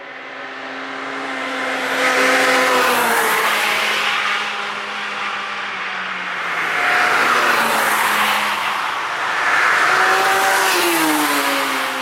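Cars driven hard on the Nürburgring Nordschleife pass one after another, engines running at high revs, the engine note dropping in pitch as each goes by: about three passes.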